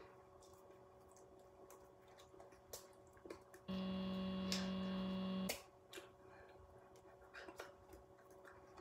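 Faint room tone: a low steady electrical hum with a few soft clicks, and a louder hum that switches on a few seconds in, runs for about two seconds and cuts off suddenly.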